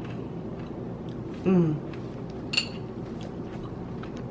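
A person chewing a mouthful of dessert, with a short falling 'mmm' of enjoyment about a second and a half in and a brief metallic clink of a spoon about a second later, over a steady low background hum.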